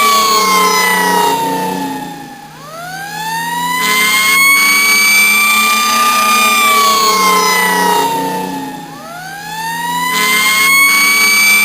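Police siren wailing in a slow rise and fall. The tone sinks low and quiets about two and a half seconds in and again near nine seconds, then climbs back up and holds high each time.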